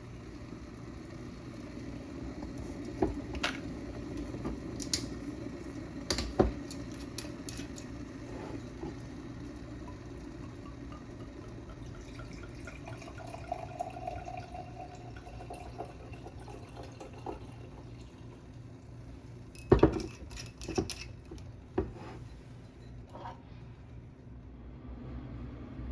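Scattered sharp clinks and knocks of glassware and dishes, with liquid poured in the middle, its pitch rising as the vessel fills.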